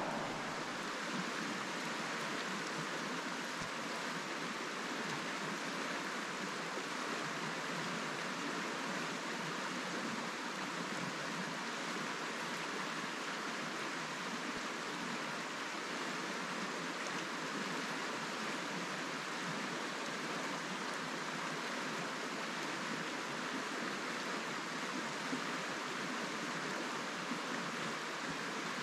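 A small river running steadily: an even rush of flowing water.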